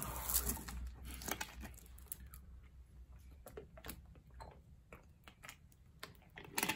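A person drinking water from a thin plastic bottle: faint swallows and small crinkles of the plastic, with a few soft clicks.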